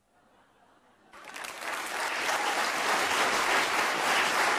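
Audience applause breaking out about a second in after a short near-silent pause, swelling quickly into steady clapping.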